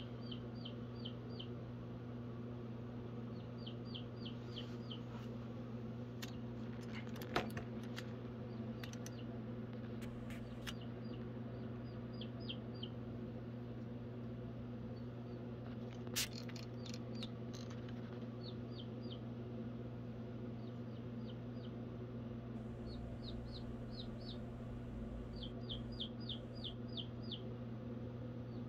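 Baby chick peeping in quick runs of four to six short, falling peeps, repeated every few seconds over a steady low hum. Two sharp clicks stand out, about seven and sixteen seconds in.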